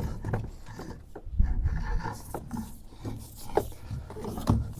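Thick 4/0 electrical cable scraping and rubbing as it is pushed through conduit, with irregular knocks and low thuds.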